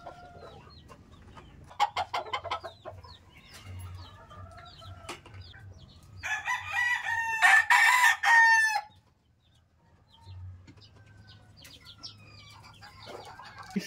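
Gamefowl rooster crowing once, a loud call of about two and a half seconds near the middle, with short scattered clucks and calls from the other birds around it.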